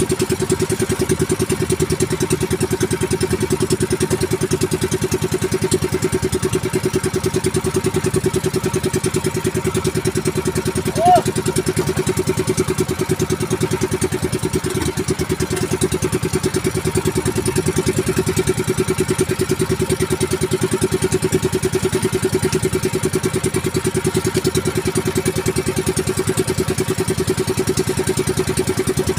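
Outrigger fishing boat's engine running steadily under way, a fast even hum that holds constant throughout. A brief short chirp sounds about eleven seconds in.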